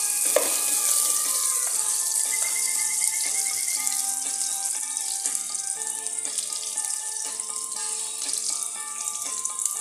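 Background music with a plucked-sounding melody, over the steady hiss of sliced onions, garlic and ginger sizzling in hot oil in a pot.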